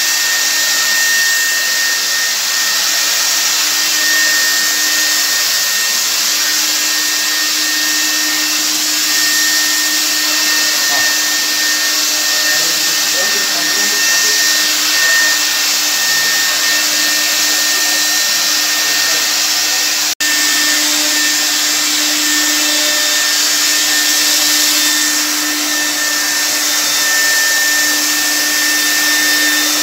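Electric handheld ULV cold fogger running continuously while spraying disinfectant mist: a loud, steady rush of air from its blower motor, with a constant low hum and a higher whine. The sound cuts out for an instant about two-thirds of the way through.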